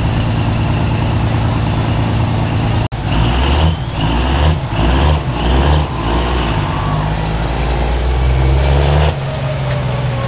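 Turbocharged diesel pickup truck engine running hard with a high turbo whistle. After a sudden break about three seconds in, the revs pulse five times, then hold steady before dropping off near the end.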